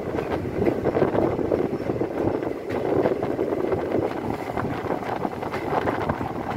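Passenger train running along the track, its coach wheels rumbling with irregular clatter on the rails, and wind buffeting the microphone at an open coach door.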